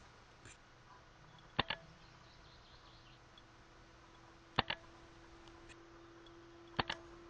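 Airsoft sniper rifle firing three times, about three seconds and then two seconds apart, each shot a sharp double click.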